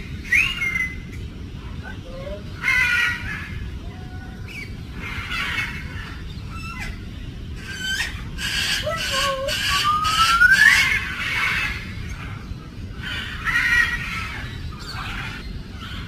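African grey parrot vocalising: a string of short squeaks, whistles and speech-like chatter, broken by clicks, with a long rising whistle about ten seconds in.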